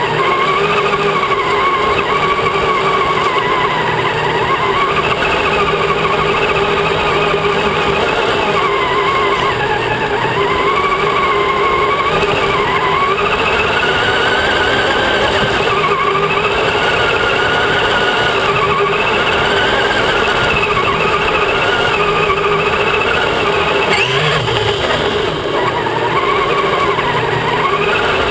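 Radio-controlled truck driving over dirt and gravel, heard from on board: the electric motor and gears whine, the pitch rising and falling as the throttle and speed change, over steady tyre and chassis rumble.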